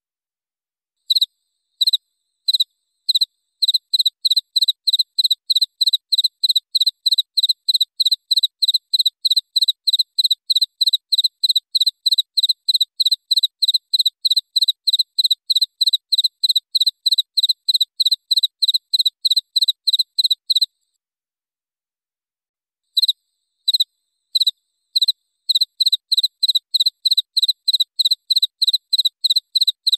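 Cricket chirping: an even series of short, high chirps, about three a second, with silence between them. The chirps begin about a second in, stop for about two seconds past the middle, then start again.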